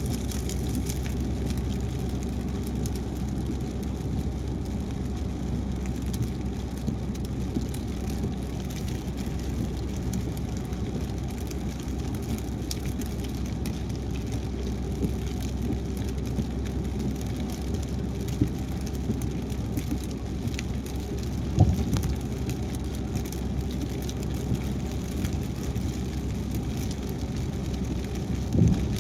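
Steady road noise from a car driving on a wet highway in the rain, with two brief low thumps about two-thirds of the way through and near the end.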